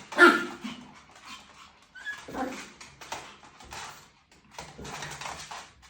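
Pomeranian giving a sharp yip about a quarter second in, then shorter whining and scuffling sounds.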